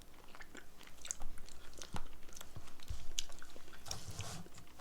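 Chewing chocolate close to the microphone, with scattered small wet mouth clicks and soft knocks.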